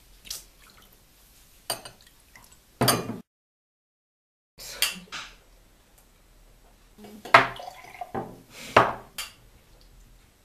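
Glass tumblers clinking and knocking on a tabletop while liquid is poured into them from a glass bottle: a handful of sharp clinks and knocks, with a dead silence of about a second and a half partway through.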